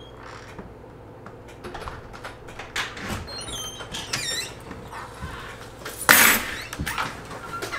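A back door being unlatched and opened: a few clicks, then squeaky hinges as it swings, and a loud bump about six seconds in as someone comes through with gear.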